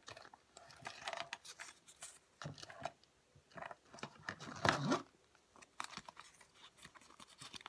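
Hands rummaging through a plastic storage container of fingerboard gear: irregular rustling and light plastic clicks and knocks, loudest about halfway through.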